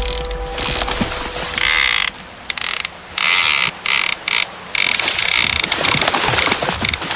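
A high-pitched, ratchet-like mechanical whir in repeated stretches of about half a second to a second and a half, stopping and starting with short gaps.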